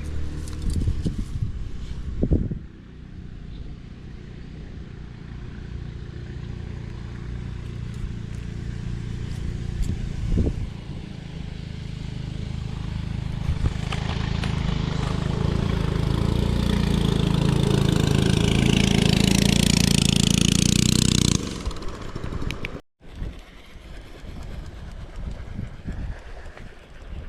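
A small engine running steadily and growing louder, then cutting off suddenly about three quarters of the way through; quieter wind noise follows.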